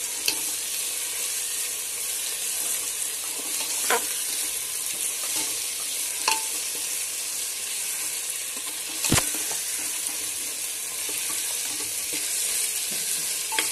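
Chopped green chillies, ginger, garlic and onions sizzling steadily in hot oil in a pressure cooker over a high flame, stirred with a steel ladle. The ladle clacks against the pot a few times, loudest about nine seconds in.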